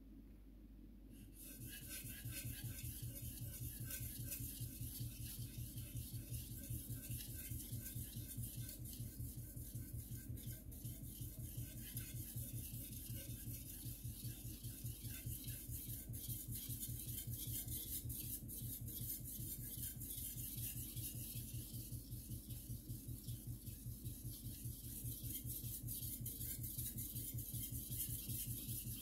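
A carbon-steel (Shirogami #2) gyuto blade being stroked rapidly back and forth on a wet Suehiro Cerax #1000 whetstone: a rhythmic scraping hiss, one stroke after another, starting about a second in.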